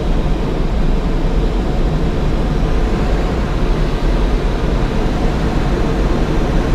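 Steady rush of air streaming over a glider's canopy in flight, heard from inside the cockpit, with a low rumble underneath.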